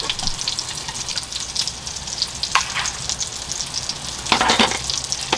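Food sizzling on the heat, a steady crackling hiss, with a few clicks and scrapes of a spoon on a metal mess tin as cooked rice is scooped out.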